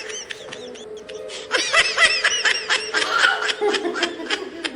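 A young child giggling in quick high-pitched peals, briefly at the start and then in a longer, louder run from about a second and a half in.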